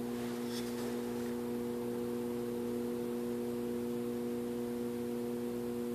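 Garage door opener motor humming steadily without turning. This is a stalled motor, which the owner traces to a faulty start capacitor.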